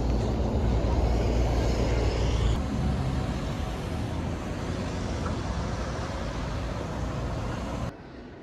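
Outdoor street noise: a steady low rumble and hiss of road traffic. It cuts off abruptly near the end to a much quieter indoor hush.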